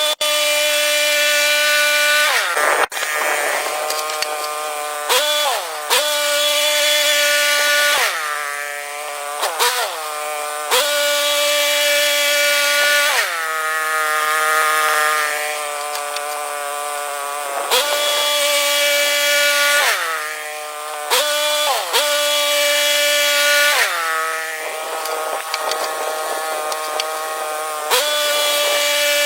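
Motor-driven wood saw running at a steady high pitch, its note dipping again and again as the blade bites into the wood and bogs under load, then climbing back.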